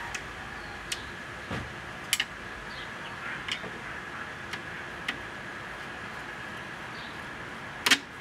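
Scattered small metal clicks and taps of machine screws and a nut being started by hand into a screen-door latch, the sharpest click near the end, over a faint steady high-pitched hum.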